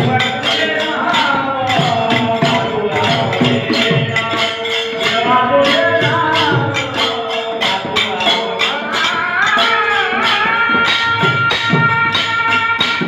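Devotional bhajan music: a singing voice with a steady held drone note under it and a dense, regular beat of percussion strikes.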